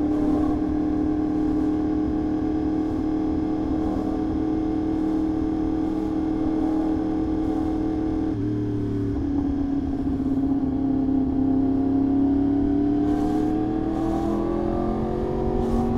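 Yamaha R1 sport bike's inline-four engine running at a steady cruise. Its note drops briefly about eight seconds in, then climbs slowly.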